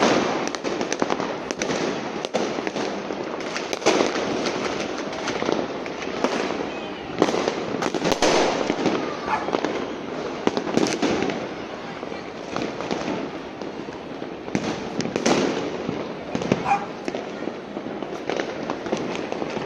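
Many fireworks and firecrackers going off at once: a continuous crackle of bangs and pops, with louder blasts every few seconds.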